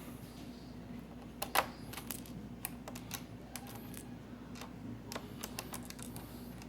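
Irregular small clicks and taps of a screwdriver and tiny screws on a laptop's frame as the screws are pressed back in, the loudest click about one and a half seconds in.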